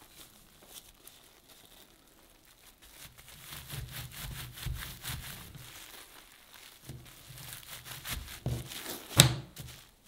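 Bamboo sushi mat wrapped in plastic wrap being rolled and pressed around a sushi roll on a wooden counter: crinkling and rubbing of the wrap and slats in two stretches, with one sharp knock on the wood a little after nine seconds in.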